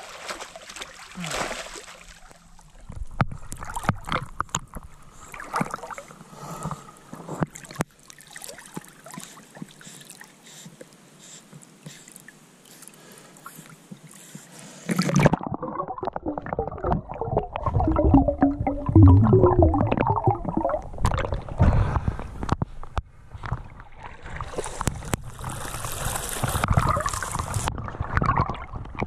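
River water sloshing and gurgling against a camera at the water line, with splashing from a goldendoodle puppy swimming close by. About halfway through the sound turns abruptly louder and more churning as the water washes over the camera.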